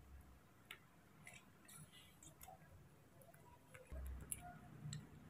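Faint, irregular little clicks and smacks of a baby monkey licking and chewing a slice of ripe papaya held to its mouth.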